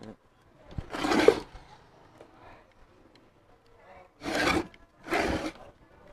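Finned metal stator housing of a 3 kW three-phase motor scraping on a wooden stand as it is shifted and turned: one scrape about a second in, then two close together near the end.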